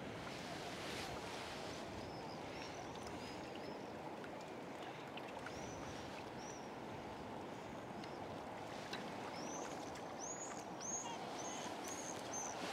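Wind-ruffled water lapping steadily, with a small bird giving short high chirps now and then, several in quick succession near the end.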